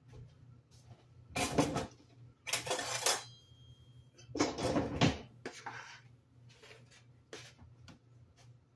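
Kitchen clatter of dishes and metal utensils being handled and set down, in three main bursts about a second apart. The middle burst leaves a brief metallic ring, and a few lighter clicks follow.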